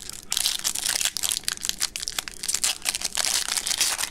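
Foil trading-card pack wrapper crinkling and tearing as it is pulled open by hand, a dense run of crackles that starts about a third of a second in.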